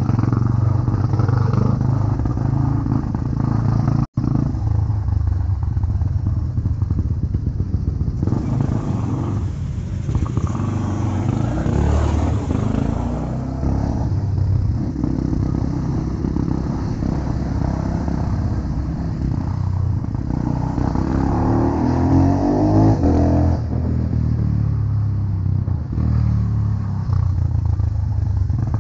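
Bored- and stroked-up Honda CB100 single-cylinder four-stroke engine, enlarged to 200cc, running steadily under way on the road. The sound cuts out for an instant about four seconds in, and the revs climb around twenty-one seconds in.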